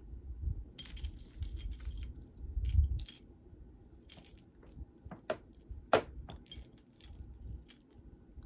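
Beaded necklaces being handled: beads and chain clicking and jingling, with a burst of rustling about a second in and a low thump near three seconds in.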